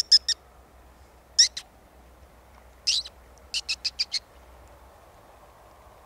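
Short, high-pitched mouse-like squeaks made with the lips as a lure to draw in a barn owl. There is a quick group of three, a pair about a second and a half in, a longer sliding squeak near three seconds, then a fast run of five that stops just after four seconds.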